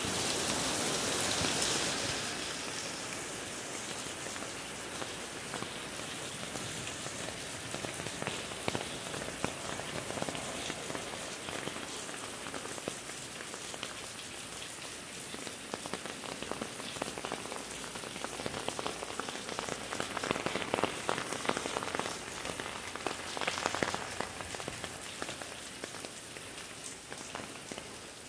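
Rain falling on pavement: an even hiss full of small drop ticks, a little louder in the first two seconds, with a patch of louder, denser drips about two-thirds of the way through.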